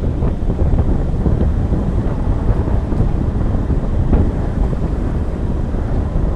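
Wind rumbling on the microphone over the low, steady noise of a vehicle rolling along a dirt road, with a faint knock or two.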